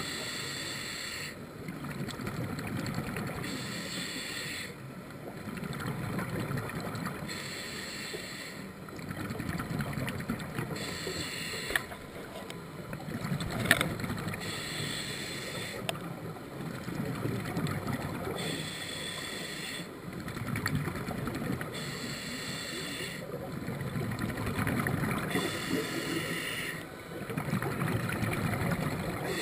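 Scuba regulator breathing underwater: a hiss on each inhalation alternates with a burble of exhaled bubbles, about one breath every three to four seconds. One sharp click about halfway through.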